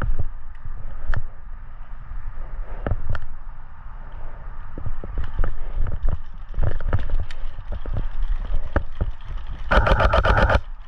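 Airsoft game: scattered sharp clicks and knocks, then near the end a full-auto burst from an airsoft gun, about a dozen rapid, evenly spaced shots within a second.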